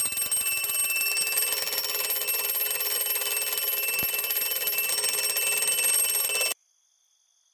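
Mechanical twin-bell alarm clock ringing, a fast steady clatter of the hammer on the bells, which cuts off suddenly about six and a half seconds in.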